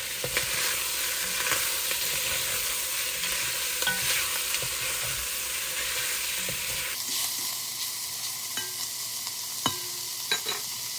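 Halved meatballs sizzling in olive oil in an enamelled Dutch oven as they are stirred, the utensil scraping and knocking against the pot now and then, with a few sharper knocks near the end.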